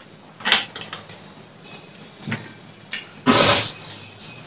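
Eating sounds at a table: a few short soft rustles and scrapes of food and hands, with one louder half-second burst of noise a little over three seconds in.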